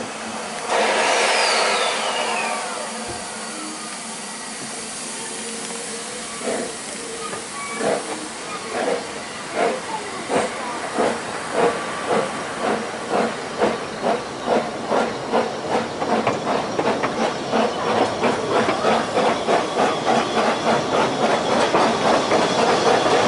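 Narrow-gauge Ffestiniog Railway steam locomotive letting off a loud hiss of steam about a second in, then pulling away: its exhaust beats start slow, about one a second, and quicken steadily to several a second.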